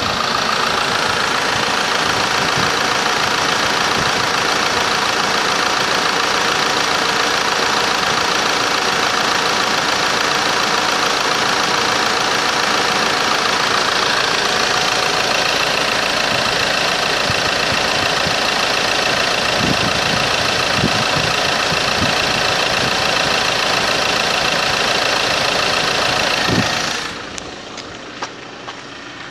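A 2012 Ford Transit's 2.2-litre four-cylinder turbo-diesel engine idling steadily, heard close up in the open engine bay. Near the end the sound drops away sharply as the microphone moves off the engine bay.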